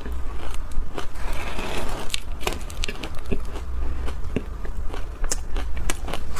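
Close-miked crunching of refrozen shaved ice being chewed: a steady run of sharp, irregular crackles and clicks. A metal spoon scrapes through the icy heap in the bowl.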